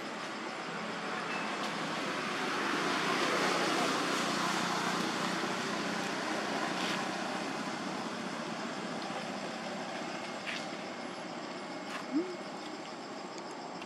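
A road vehicle passing: a broad rushing noise that swells a few seconds in and slowly fades, over a steady high-pitched insect buzz. A short rising squeak near the end.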